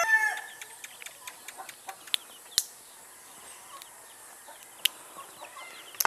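The tail of a rooster's crow dies away just at the start. Then chickens cluck and peep softly in the background, with several sharp little clicks from glass vaccine vials and their caps being handled.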